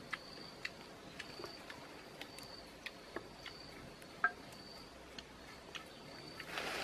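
Sparse, irregular sharp clicks and ticks over a high, steady tone that pulses about once a second, with a short rustle near the end.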